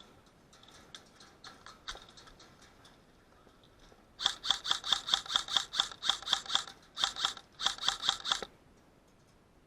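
Airsoft gun firing rapid single shots, about five a second, in three strings with short pauses between them, after a few seconds of faint clicks.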